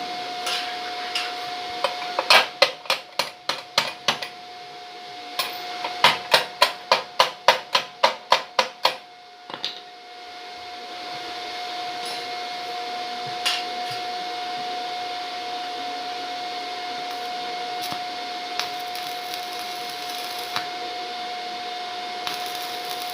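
Mini BTEC welding machine running with a steady hiss and a constant high whine. Two runs of sharp knocks at about four a second come through, one of about seven strikes starting about two seconds in and one of about ten strikes starting about six seconds in.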